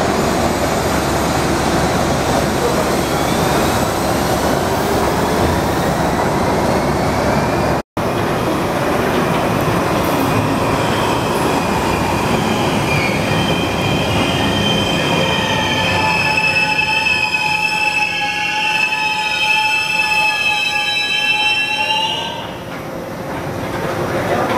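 Miami Metrorail Budd rapid transit car running, with a whine that rises in pitch as it picks up speed. After a break about 8 seconds in the train runs on, and from about 15 seconds in the wheels give a loud, high squeal of several tones. The squeal stops about 22 seconds in, leaving quieter running noise.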